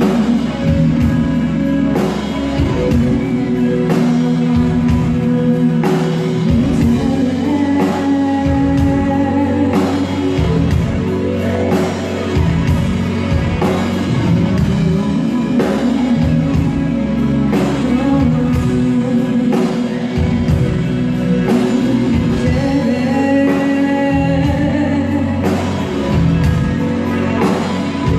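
Live rock band playing a song in a large hall: drum kit, bass and electric guitars, keyboard and amplified violin, with a steady drum beat.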